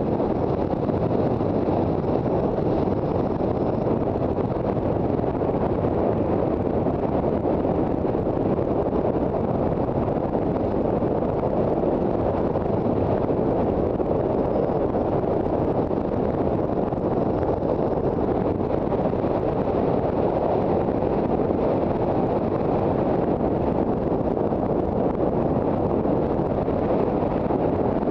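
Steady wind rush over the microphone of a Honda CB400 Super Bol d'Or motorcycle riding along, with the bike's engine running under the wind.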